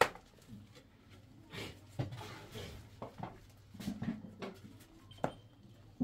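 Metal pots, trays and containers knocking and clattering now and then as they are shifted about, with a sharp knock about five seconds in.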